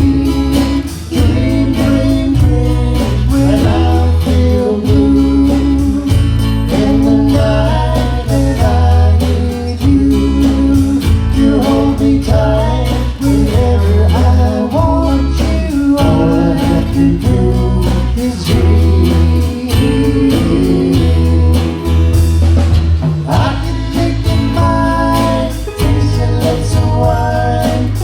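Live band playing a song: singing over guitar, with a low bass part changing note every second or so and a steady beat.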